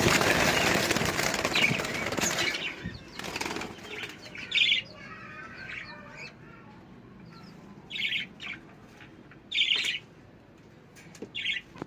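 Budgerigars flapping their wings in a loud flutter for about the first three seconds, then four short chirps spaced a second or two apart.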